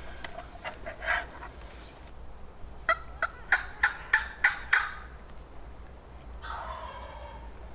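An Eastern wild turkey gobbler gobbles once, a quick rattling run of about seven pulses lasting about two seconds.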